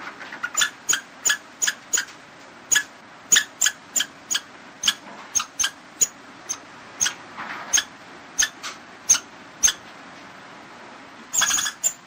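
Squirrel giving a run of short, sharp, high chirping calls, about two a second at uneven spacing, over a faint steady hiss. Near the end comes a longer, louder burst of rapid calls.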